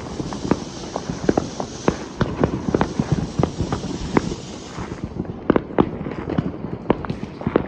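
Fireworks going off in quick, irregular succession: many sharp bangs and crackles overlapping, over a hissing that fades about five seconds in.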